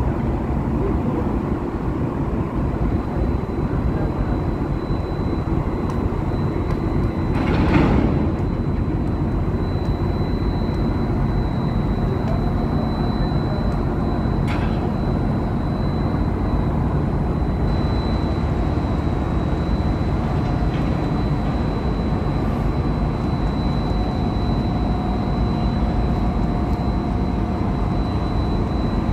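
Steady low rumble of a tugboat's diesel engine working to push a container ship to its berth, with a faint high whine held throughout and a brief louder rush about eight seconds in.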